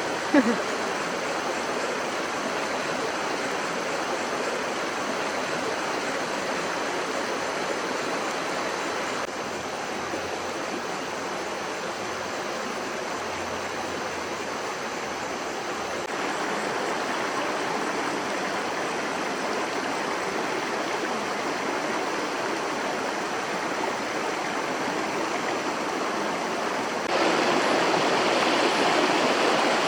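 Stream water flowing steadily over rocks, a continuous rushing that becomes louder near the end. About half a second in there is one brief sharp knock.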